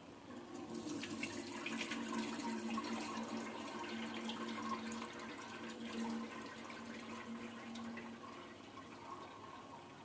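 Tap water running and splashing as rice is rinsed by hand in a steel bowl and the cloudy rinse water is poured off. It starts about half a second in with a steady low hum under the splashing and eases off about eight seconds in.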